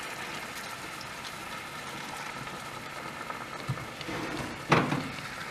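Wine poured into a hot cast iron skillet of roast and vegetables, the liquid sizzling and bubbling steadily as it deglazes the pan. A short knock about four and a half seconds in.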